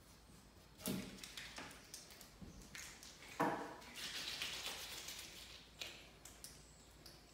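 Putty knife and gloved hands working in a plastic tub of glazing putty: a few faint knocks and scrapes, the loudest about three and a half seconds in, then about a second of scraping.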